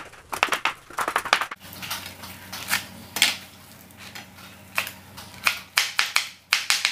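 A large kitchen knife chopping fresh herb leaves on a white plastic cutting board: quick runs of blade strikes on the board, thinning to a few slower, quieter cuts in the middle before a fast run picks up again about five seconds in.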